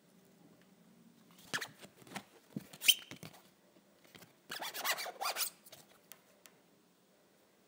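Plastic A4 clear file folders handled and slid against one another: two short spells of rustling and rubbing with small clicks, the sharpest snap about three seconds in.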